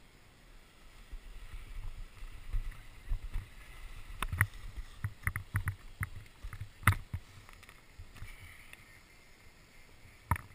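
Snowboard scraping and sliding over wet slushy snow, with a string of sharp clicks and knocks from the board and gear. The loudest knock comes about seven seconds in.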